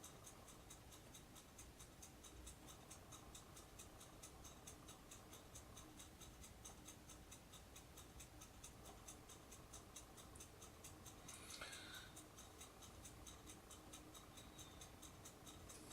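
Near silence: room tone with a faint, fast, even ticking throughout, and a faint brief rub about eleven seconds in.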